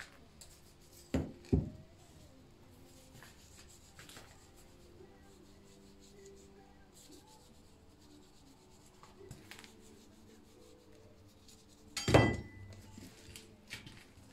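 Knocks and clanks of metal objects in a blacksmith's workshop. There are two sharp knocks about a second in, and a louder metallic clank about twelve seconds in that rings briefly, over a faint steady hum.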